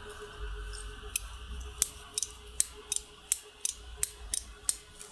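ШИ-11 rotary stepping switch with its armature worked by hand against its flat return spring. The armature and ratchet mechanism give about ten sharp metallic clicks at roughly three a second, starting about a second in.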